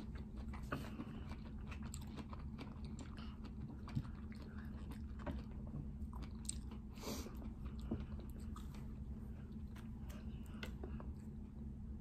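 Two people chewing mouthfuls of syrup-coated strawberries close to the microphone: wet chewing with scattered short, sharper crunches.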